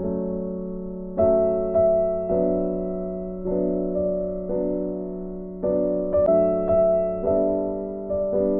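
Background music: slow piano or electric piano chords, a new chord struck about once a second and left to fade.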